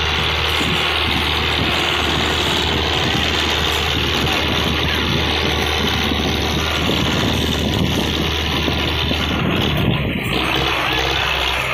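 A farm tractor's diesel engine running steadily under load, a constant low drone, as it hauls a heavily loaded trolley.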